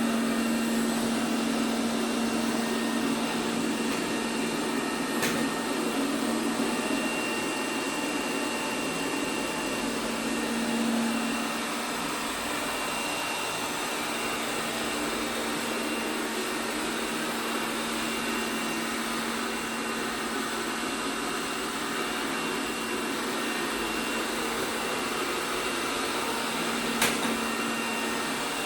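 ELARI SmartBot Lite SBT-002A robot vacuum running: a steady hum from its motor and brushes, dropping a little after about eleven seconds. There is a light click about five seconds in and a sharper knock near the end.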